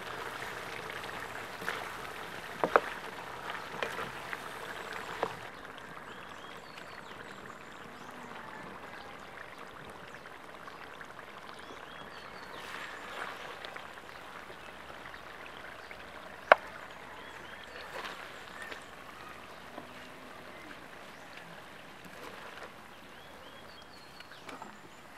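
Pork adobo in thick coconut-milk sauce simmering in a wok, a soft steady bubbling, with a few sharp clicks, the loudest about 16 seconds in.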